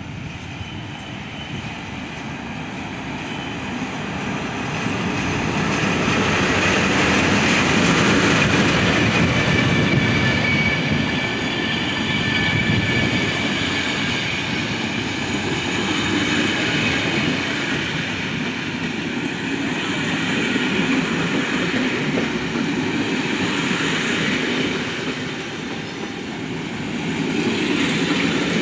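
Electric-hauled passenger train of vintage blue Wagons-Lits coaches rolling slowly past along the platform: a steady rumble of wheels on rail that grows louder after a few seconds, with a thin high wheel squeal in the middle and again near the end.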